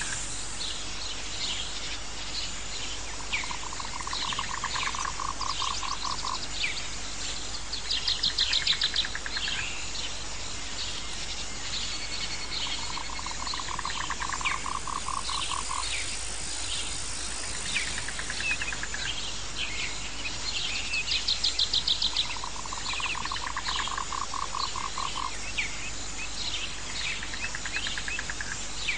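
Outdoor nature ambience of calling animals: many short high chirps over a steady bed, a pulsing lower trill that comes three times, and two loud, rapid high trills.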